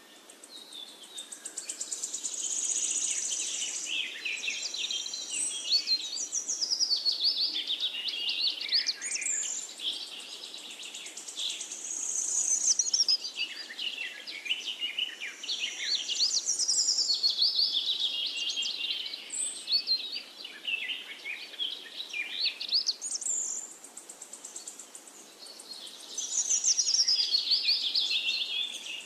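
Songbirds singing: fast chirps and trills in long phrases lasting several seconds, with brief lulls between them.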